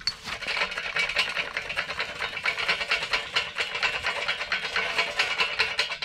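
Glowing charcoal being poured and raked into place: a dense, steady clatter and scrape of hot coals that stops abruptly at the end.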